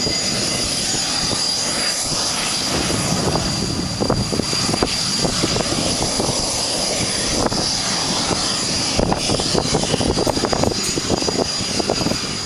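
BAE Systems Hawk jet trainer's Rolls-Royce Adour turbofan running at taxi power as the jet rolls and turns on the runway: a steady high whine over a rough rumble.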